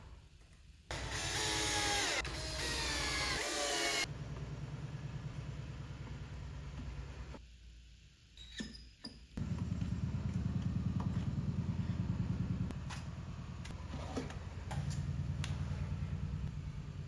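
Wooden drawers being slid in and out of a cabinet on metal ball-bearing drawer slides: a rolling rattle with clicks. A louder, scratchier stretch comes from about one to four seconds in.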